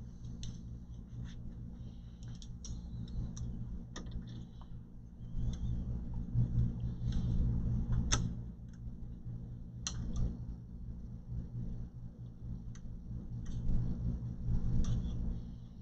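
Scattered light clicks and short scrapes of hands and a tool working at the studs inside an all-in-one computer's case, trying to get them out; the studs stay fixed. A steady low hum runs underneath.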